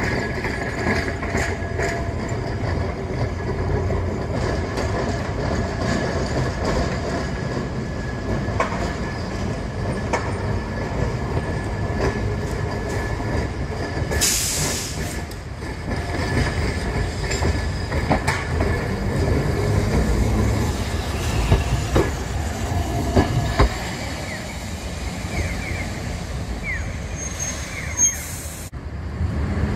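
Kagoshima City streetcars running on the rails through a curve: a steady low rumble with thin wheel squeal and clicks over the track. A short hiss comes about halfway through.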